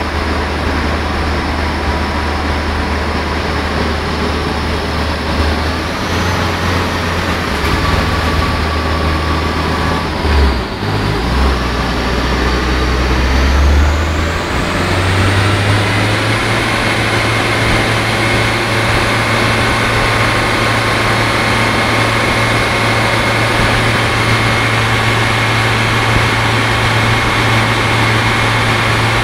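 Car engine running under load on a rolling-road dyno, held at steady speeds for ECU mapping. About ten seconds in the note dips briefly and shifts, and from about fifteen seconds in it holds a higher steady note.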